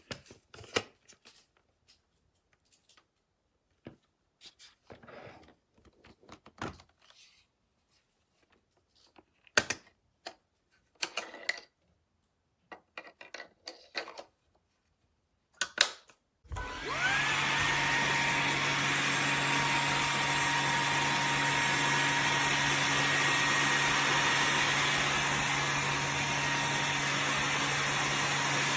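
Scattered clicks and knocks from handling, then a little over halfway in the Hoover H-FREE 100 cordless stick vacuum switches on. Its motor spins up with a quick rising whine and then runs steadily with a high whine over a low hum.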